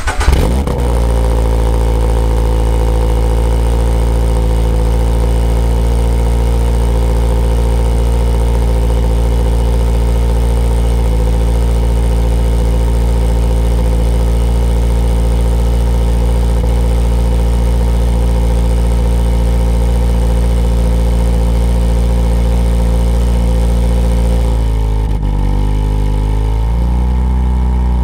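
Toyota GR86's 2.4-litre flat-four boxer engine (FA24) firing up on a cold start through the GR Performance dual exhaust, then running at a steady fast cold idle. About three seconds before the end the idle speed dips and wavers before settling.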